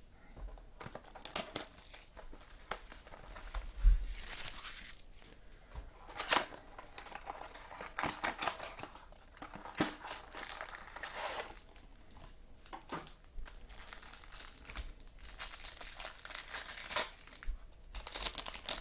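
Foil trading-card pack wrappers being torn open and crinkled, with cards handled in between: an irregular run of rustles and tears with scattered sharp clicks and a thump about four seconds in.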